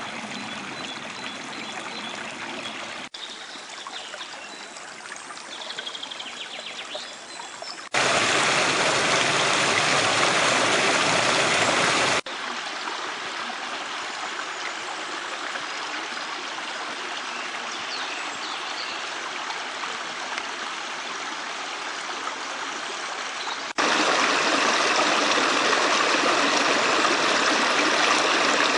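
A small woodland brook rushing and splashing over mossy rocks and little cascades, a steady wash of running water. It jumps abruptly in loudness between takes, louder for a few seconds about a third of the way in and again over the last few seconds.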